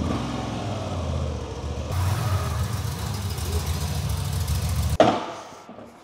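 Moto Guzzi V85 TT Travel's air-cooled transverse V-twin running at low revs as the bike is ridden slowly. The engine note picks up about two seconds in and stops abruptly about five seconds in.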